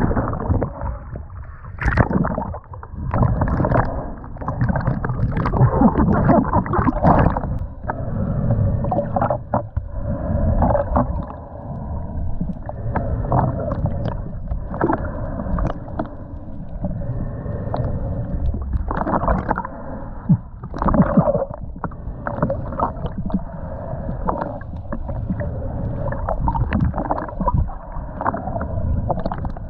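Muffled water sloshing and gurgling, broken by irregular knocks and bumps.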